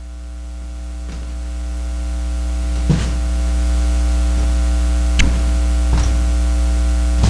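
Electrical mains hum with a buzzing stack of overtones, growing steadily louder, with a few faint clicks along the way.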